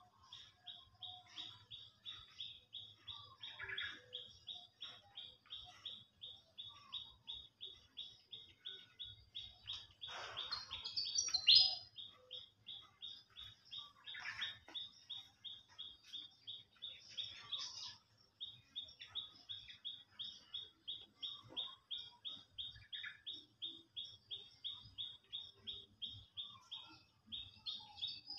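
A steady run of short, high chirps, about three a second, from a small animal calling over and over, with one louder, brief burst of sound about eleven seconds in.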